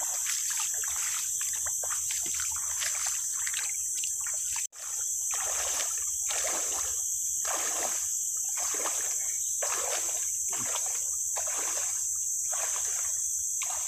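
Legs wading through knee-deep floodwater: steady rhythmic sloshing splashes, about three strides every two seconds, with a steady high insect drone behind.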